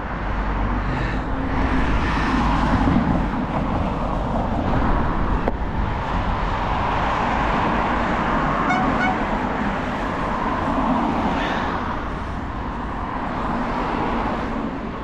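Road traffic passing on a multi-lane road: cars and a van driving by close at hand, a steady rush of tyre and engine noise that swells and fades as each vehicle passes.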